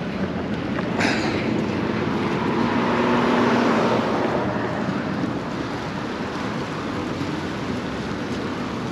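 Steady street traffic and road noise heard from a moving handlebar-mounted microphone, swelling louder from about one to four seconds in as a vehicle passes.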